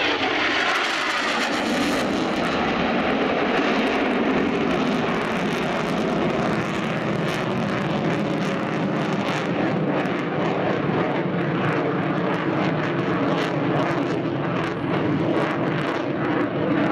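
Twin EJ200 turbofan engines of a Eurofighter Typhoon FGR4 making a loud, steady jet roar in display flight. A tone drops in pitch right at the start.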